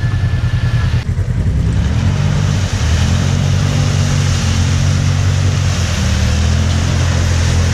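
Side-by-side UTV engine running at steady revs, its pitch stepping up slightly about three seconds in, over a steady hiss.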